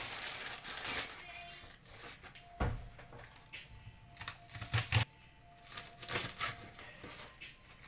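Plastic produce bag crinkling as a bunch of bok choy is unwrapped, then a kitchen knife cutting through the crisp bok choy stems, with a few sharp knocks of the blade on the plastic cutting board.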